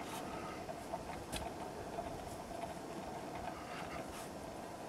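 Round-point shovel digging into loose, dry sand and tossing shovelfuls onto a spoil pile: scraping and pattering sand, with a faint steady hum underneath.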